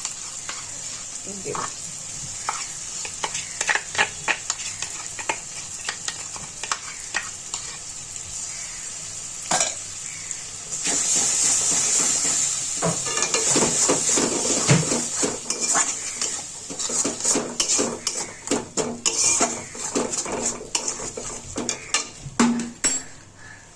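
Spice paste frying in hot oil in a pan, sizzling steadily while a metal spatula stirs and scrapes it with frequent clicks against the pan. About halfway through the sizzle turns louder and brighter, as a little water goes into the hot paste.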